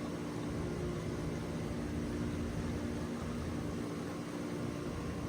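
Steady mechanical hum with an even rushing noise under it, cut off abruptly at the very end.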